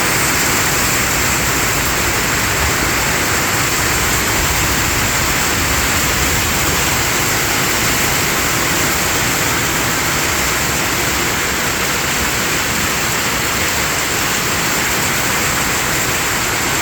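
Heavy rain pouring down, a loud, steady hiss with no let-up.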